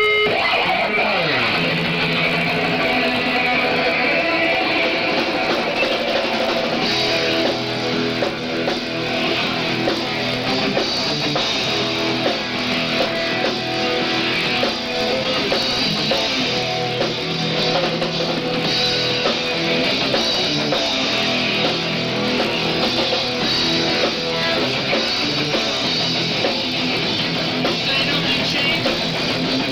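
Live rock band playing loud in a basement: distorted electric guitars over drums.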